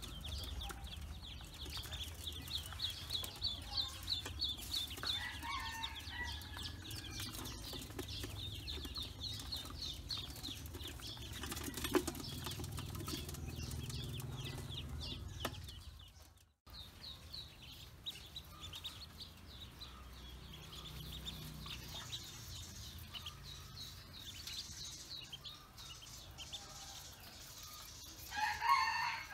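A brood of ducklings peeping, many thin high calls a second running on without pause, with a louder burst of sound near the end.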